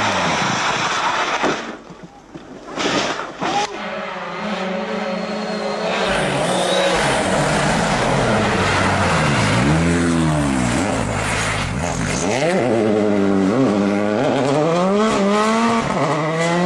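Rally car engine at full throttle, rising and falling in pitch as the driver shifts gears and lifts off through corners. A brief drop-out about two seconds in marks a cut between clips.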